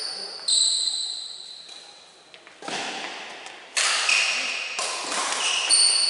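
Badminton rally in an echoing hall: four sharp racket strikes on the shuttlecock, roughly a second apart after the serve, with brief high squeaks of court shoes.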